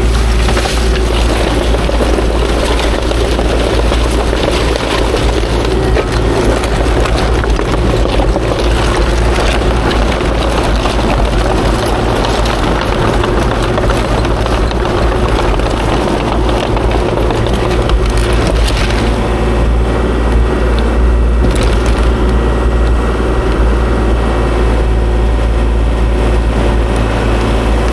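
Kubota KX040-4 mini excavator's diesel engine running steadily under working load, with crunching and scraping of rock being moved.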